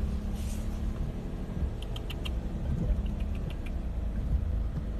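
Suzuki Swift Sport's engine and tyres running at a crawl, a steady low rumble heard from inside the cabin. A few short, faint ticks come about two seconds in and again around three seconds in.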